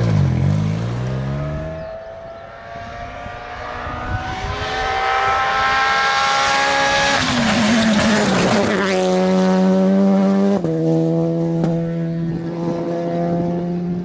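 Rally car engines at full throttle on a tarmac stage, from several passes cut together. The engine notes climb steadily through long pulls, drop sharply at gear changes about seven and ten and a half seconds in, and then hold at high revs.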